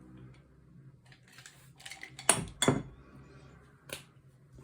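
Sharp plastic clicks and taps of a fine-liner pen being handled and its cap worked while swapping out a pen that has run dry: a few light ticks, two loud clicks close together a little past two seconds in, and another near the end.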